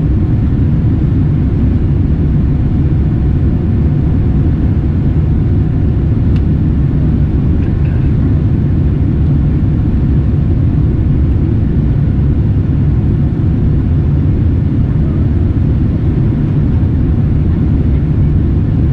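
Steady low rumble of a Boeing 787-9's engines and airflow heard from inside the passenger cabin, even and unchanging.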